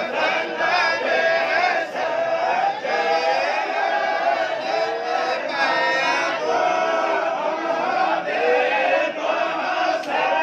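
A large group of men reciting the Quran together in unison, a continuous chanted recitation whose melody rises and falls without pause.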